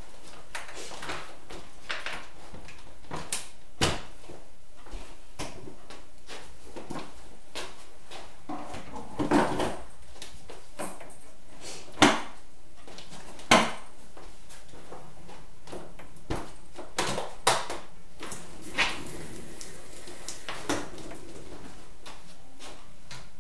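Clicks and clunks of an iCandy Strawberry 2 pushchair frame being unfolded and locked upright, then a Maxi Cosi Pebble car seat being clicked onto its adapters; the two sharpest clunks come a second and a half apart near the middle.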